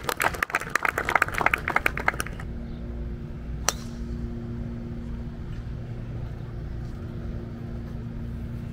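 Scattered clapping dies away, then about three and a half seconds in a golf club strikes a teed-up ball once with a single sharp crack on the tee shot. A steady low hum runs underneath.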